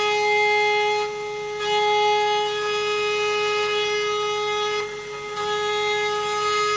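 Spindle of a Genmitsu 3030 Prover Max desktop CNC milling aluminum: a steady high whine at one unchanging pitch. Its upper overtones fade and come back twice, about a second in and again near five seconds, as the load on the cutter changes.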